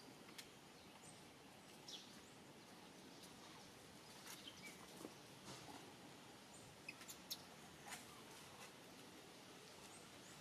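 Near silence: faint outdoor background hiss with scattered soft clicks and a few brief, faint chirps.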